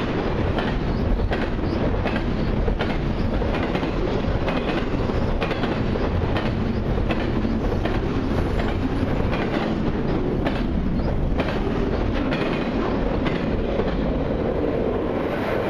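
A long double-stack intermodal freight train of container well cars rolling past at track speed. Its steel wheels keep up a steady rumble, with a rhythmic clickety-clack as the trucks cross the rail joints.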